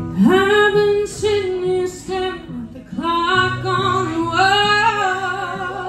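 A woman singing a slow country ballad into a handheld microphone, with long held notes that bend in pitch, over quiet sustained low notes of an instrumental backing.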